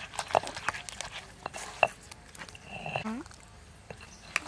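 Stone pestle working chili paste in a stone mortar: a few irregular knocks and scrapes of stone on stone through the wet paste, the loudest knock a little under two seconds in.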